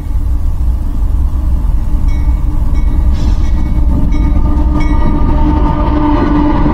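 A freight train running past: a heavy low rumble with a few sharp clicks of wheels over the rail, and a steady chord of tones growing louder in the last couple of seconds.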